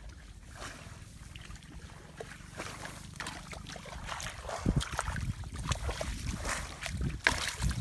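Wind buffeting the microphone as a steady low rumble. From about halfway, irregular rustling, squelches and small splashes of bare feet and hands moving through grass and shallow muddy paddy water.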